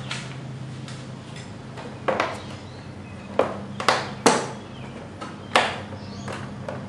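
Plastic body panel of a Kymco Super 8 scooter knocking and snapping five times as it is pried at to release its hidden tabs, the loudest snap a little past the middle, over a steady low hum.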